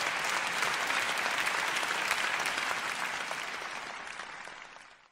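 Theatre audience applauding, a dense, even clapping that fades away over the last couple of seconds.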